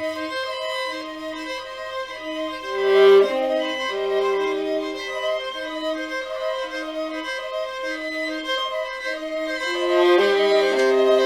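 Instrumental music with a violin-like bowed-string sound: a short note repeats about once a second under held higher notes, with a brief louder swell about three seconds in.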